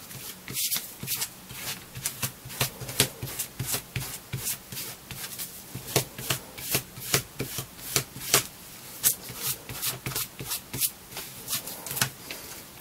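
Hand smoothing tool rubbed in quick strokes, two or three a second, over the damp flesh side of chrome-tanned leather, slicking down its nap after a coat of CMC glue.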